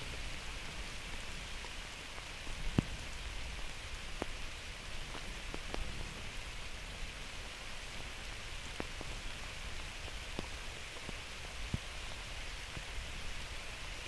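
Steady rain falling, with separate heavy drops now and then landing close by as sharp taps, the loudest about three seconds in.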